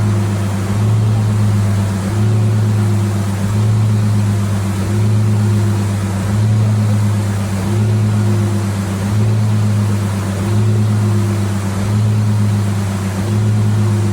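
A motor running steadily with a low hum that swells and fades about every second and a half.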